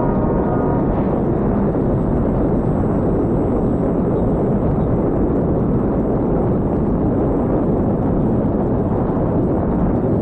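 Steady rush of wind and propeller noise at the onboard camera of an E-flite Night Radian electric RC glider in flight. A faint whine fades out about a second in.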